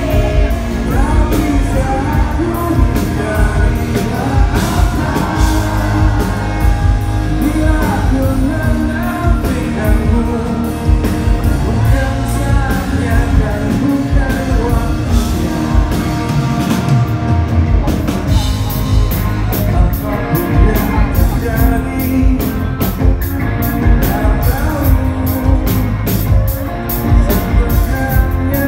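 Live rock band with a male lead singer, recorded loud from among the audience in a large hall. The low end drops away briefly about two-thirds of the way in, then the drums come back with a steady cymbal beat.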